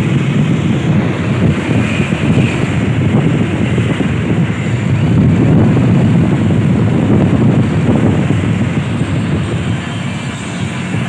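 Train passing close by, a rumble of wheels on rail that swells in the middle and eases near the end, with wind buffeting the microphone.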